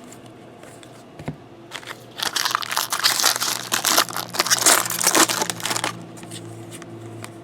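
Foil wrapper of a trading-card pack crinkling as it is opened and crumpled. It starts about two seconds in, runs loud for about four seconds, then stops.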